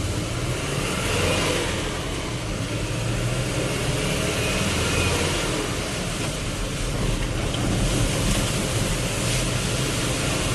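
A vehicle's engine running steadily under a loud, even rush of heavy rain and road noise.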